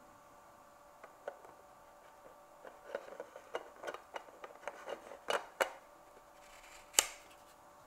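Faint handling of a Blackmagic Pocket Cinema Camera 4K body: light clicks and rubbing as hands work at its lens mount, with one sharper click about seven seconds in.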